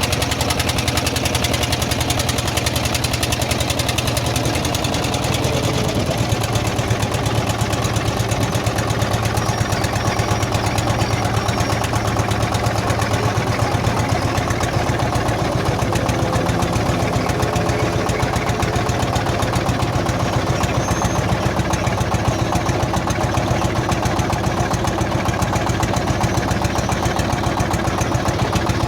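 A small engine running steadily at an even speed, its firing heard as a fast, regular throb with a low hum beneath.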